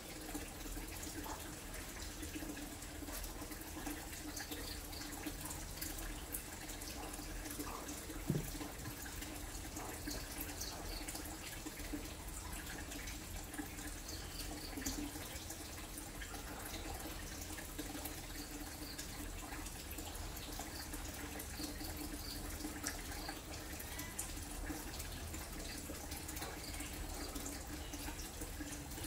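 Steady running-water sound, like a tap or a trickle, with a low steady hum beneath it and one soft knock about eight seconds in.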